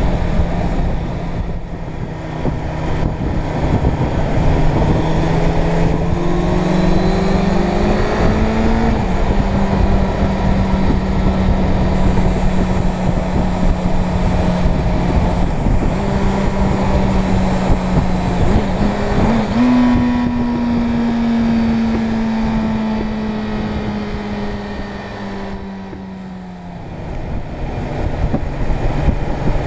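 Suzuki Bandit 600 N's inline-four engine running at road speed under heavy wind noise. The engine note climbs, drops at a gear change about nine seconds in, jumps up again around twenty seconds, then slowly falls and dips away briefly as the throttle closes a few seconds before the end.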